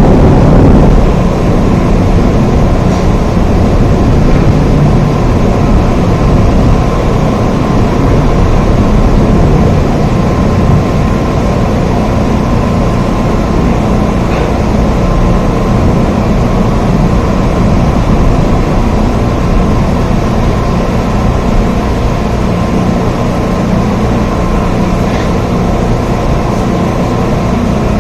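Steady rain, a dense even hiss with a deep low rumble under it. A louder rumble dies away in the first second.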